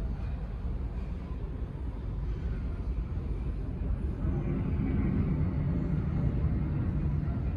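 Jet airliner engines rumbling, growing louder about four seconds in.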